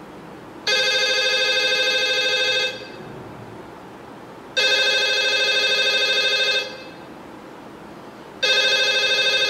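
A telephone ringing, played back from a smartphone. There are three warbling electronic rings, each about two seconds long, with about two seconds between them.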